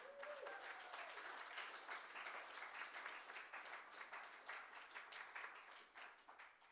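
A congregation applauding with a dense patter of many hands clapping, dying away near the end.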